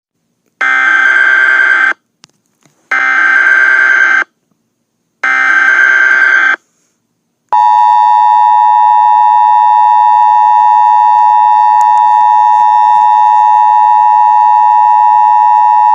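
Emergency Alert System header: three identical bursts of rapid digital data tones, about a second apart (the SAME header). Then, about halfway through, the steady two-tone EAS attention signal begins and holds on.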